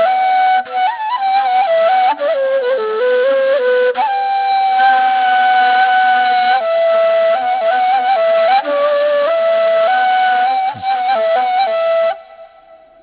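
Solo flute playing a slow melody of long held notes broken by quick ornamental runs, fading out near the end.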